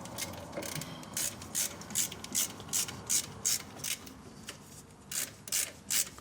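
Hand ratchet wrench clicking in rhythmic strokes, about two or three a second, as it backs out a bolt on a steering knuckle's seal assembly. The clicks thin out for a moment past the middle, then pick up again.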